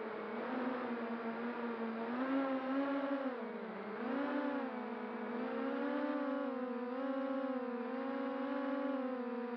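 FPV quadcopter's motors and propellers whining steadily, the pitch rising and falling with the throttle and dipping sharply about four seconds in.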